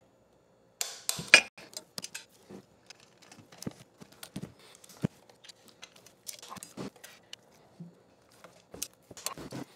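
Scattered light metallic clicks and clinks of hand tools and a crankset with chainrings being handled and set down, the busiest about a second in.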